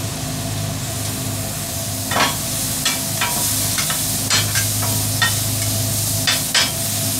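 Chicken sizzling on a food truck's flat-top grill, with a metal spatula scraping and clicking against the cooking surface a dozen or so times from about two seconds in, over a steady low hum.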